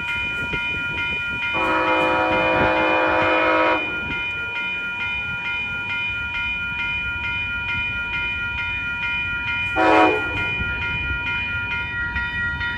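Siemens SC-44 Charger locomotive's air horn sounding a long blast of about two seconds, starting about a second and a half in, then a short toot about ten seconds in, the start of a grade-crossing signal. Under it a level-crossing warning bell rings steadily over the rumble of the approaching train.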